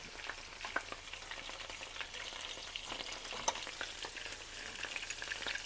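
Seasoned chicken pieces frying in hot oil: a steady sizzle with scattered crackles and pops.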